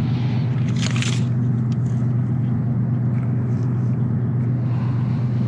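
A steady low mechanical hum that holds one pitch throughout, with a brief rustle about a second in.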